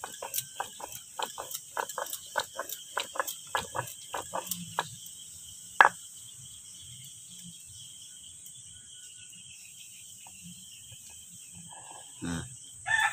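Stone roller knocking and grinding on a flat stone grinding slab as red chillies are ground into a paste: quick rhythmic knocks, about three a second, for the first five seconds, then one sharp knock about six seconds in, after which the grinding stops. A steady insect chirring runs underneath, and a rooster starts crowing right at the end.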